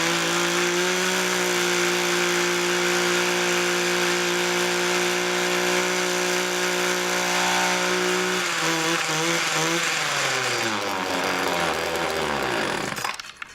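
Small two-stroke string trimmer engine running at a steady speed, then slowing about eight seconds in and winding down until it stops near the end. It runs rough and rich, which the owner puts down to a carburettor that needs cleaning or the wrong fuel mixture.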